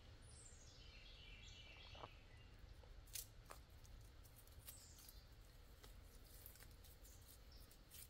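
Near silence with a few faint clicks as climbing gear is unclipped from the tree, and a bird's short descending call in the first second or so.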